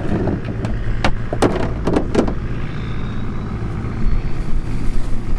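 Plastic fish crates knocking and clattering as an empty crate is handled and set onto a stack, several hollow knocks in the first half, over a steady low motor hum.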